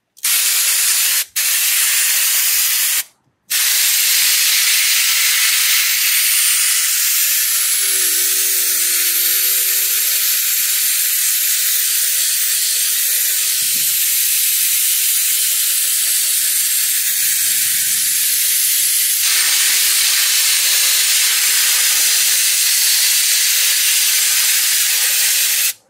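An air-powered spray glue gun hisses loudly as it sprays contact adhesive onto an upholstered door panel. The spray stops briefly twice in the first few seconds, then runs on steadily until the trigger is released near the end.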